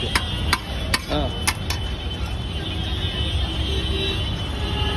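A metal serving ladle knocking sharply against a steel pot or plate, about five times in the first two seconds, as ragda is served out. Under it runs a steady low rumble of road traffic.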